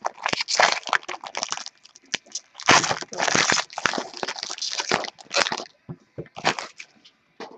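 Trading-card packaging being handled and opened: irregular crinkling and crackling of wrapper and cardboard with sharp clicks, in clusters that thin out near the end.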